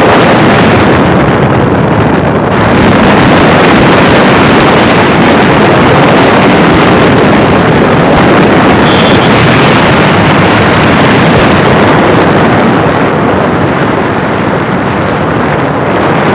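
Loud, steady wind rushing over the microphone on a moving motorcycle, with the bike's running noise underneath.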